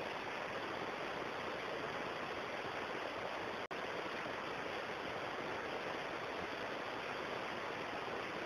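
Steady, even rushing noise of outdoor background ambience picked up by the camera microphone, with a brief dropout a little under four seconds in.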